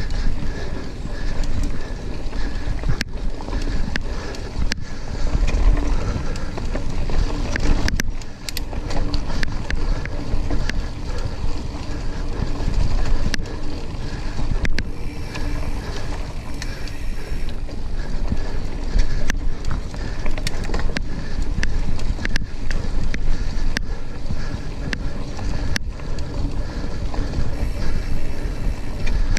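Mountain bike ridden along a dirt singletrack: the rumble of tyres on the trail and wind buffeting the microphone, broken by frequent sharp clicks and knocks as the bike rattles over bumps.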